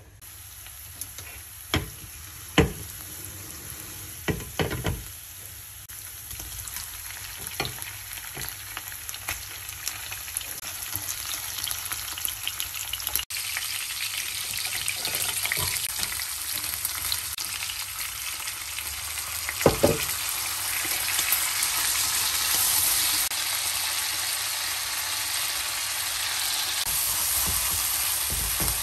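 Oil sizzling in a frying pan as spring onion, garlic, shrimps, green beans and noodles fry, the sizzle growing steadily louder. Several sharp knocks in the first five seconds and another about twenty seconds in.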